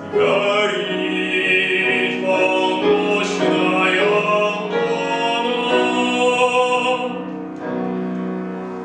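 Male classical singer performing a Russian folk song in operatic style with piano accompaniment, holding a long note near the end.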